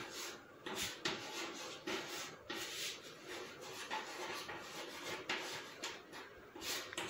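Chalk scratching across a chalkboard in short, irregular strokes as words are written out.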